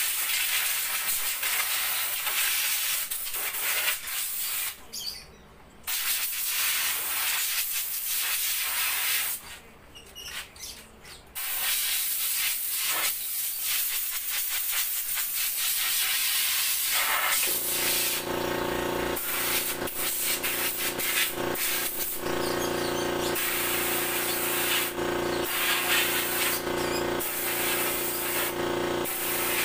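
Compressed air blowing through an air gun onto a car's air-conditioning condenser and oil cooler to clean them: a loud hiss in long bursts, with two short pauses. About 17 seconds in, a steady machine hum joins in under the hiss.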